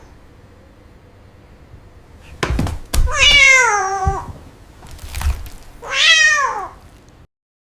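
A cat meowing twice, each a long call falling in pitch, with a few thuds before and between the meows.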